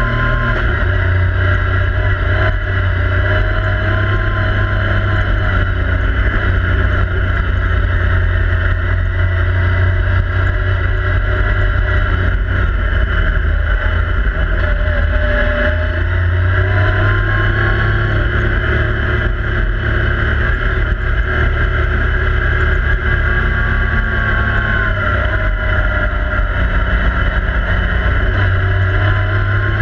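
Yamaha YXZ1000R side-by-side's three-cylinder engine running loud under way, heard from inside the open cab over a heavy low rumble, its pitch rising and falling as the driver accelerates and eases off along the trail.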